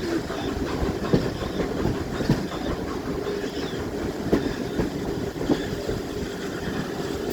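Railway carriage running along the track, heard from aboard: a steady running noise with a sharp wheel click every second or so.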